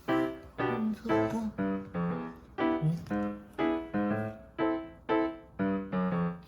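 Background music: piano chords struck at a steady beat, about two a second, each ringing out and fading before the next.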